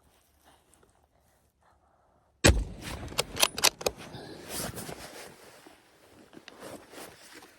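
A single hunting-rifle shot about two and a half seconds in, sudden and loud after near silence, followed by a quick run of sharp clicks and rustling.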